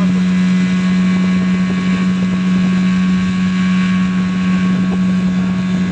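Outboard motor of a small motorboat running steadily under way, an even, unchanging drone.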